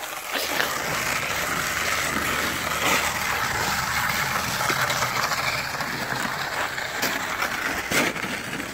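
Drift trike rolling and sliding over snow-covered ice, its PVC-sleeved rear wheels and knobby front tyre making a steady scraping hiss, with a couple of sharp clicks near the end.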